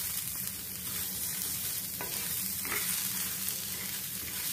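Wooden spatula stirring and scraping sliced onion and garlic cloves across a hot iron tava, dry-roasting them without oil, over a steady hiss. A few light scrapes stand out about halfway through.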